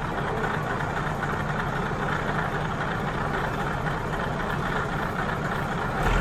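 Vintage diesel railcar's engine idling steadily while the car stands at the station, growing louder just at the end.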